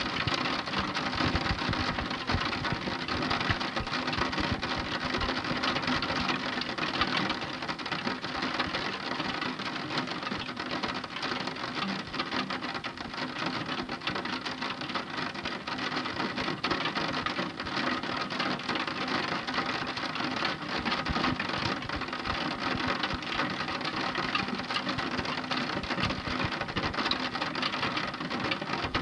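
Heavy rain falling steadily, a dense patter of many drops on a surface.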